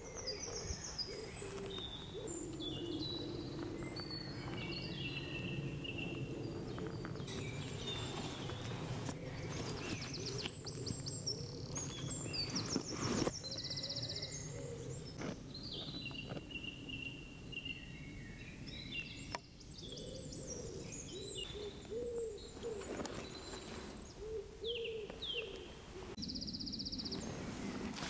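Songbirds singing in woodland: many short whistled phrases and trills from several birds, over a lower cooing call.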